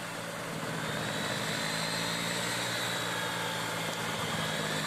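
55 HP Deutz-Fahr tractor engine running steadily under load while its mounted banana chop cutter shreds banana plants, with a faint high whine.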